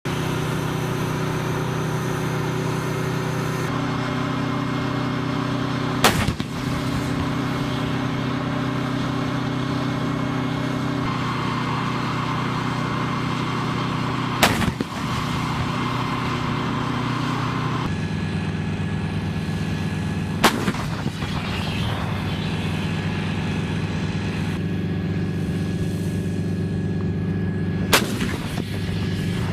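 M109 Paladin self-propelled 155 mm howitzers firing four single shots, roughly six to eight seconds apart, each a sudden blast with a brief rumbling tail. A steady engine drone from the vehicles runs underneath.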